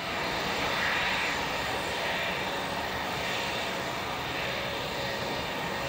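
Jet engine noise from an Airbus A330-300's Rolls-Royce Trent 700 turbofans as the airliner rolls out after touchdown. It is a steady rushing sound, a little stronger about a second in, then easing slightly.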